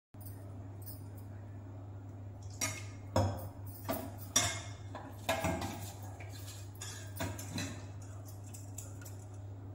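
Metal spoon scraping and clinking against a steel bowl as ground spinach paste is scooped out, a cluster of clinks and scrapes over several seconds, loudest a few seconds in. A steady low hum runs underneath.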